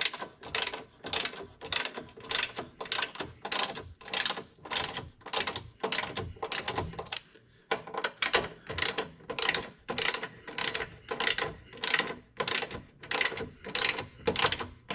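Ratchet of a click-type torque wrench, set to 44 ft-lb, clicking as it is cranked back and forth to run down the strut tower bar nuts. A steady run of clicks, about three a second, with a short pause about halfway through.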